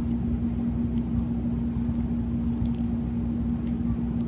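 A steady low hum with one constant tone and a low rumble beneath it, with a few faint clicks.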